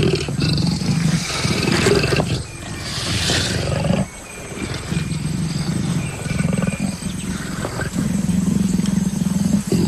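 Leopards growling and snarling in a confrontation between a dominant male and a submissive female: several long, rough growls, with a hissing snarl about three seconds in.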